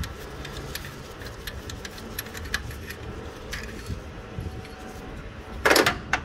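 Ratchet wrench clicking in irregular runs as the 14 mm alternator mounting bolts are loosened, with two louder short metallic rattles near the end.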